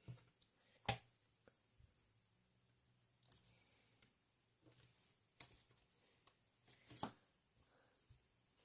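A few faint, sharp clicks over near silence: the loudest about a second in, then three more spaced a second or two apart.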